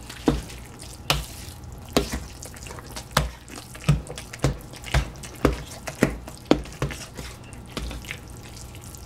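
A fork stirring a moist dressing mixture in a stainless steel mixing bowl: about two sharp clinks a second as the fork strikes the metal, with wet squishing between them. The strokes become fewer and softer near the end.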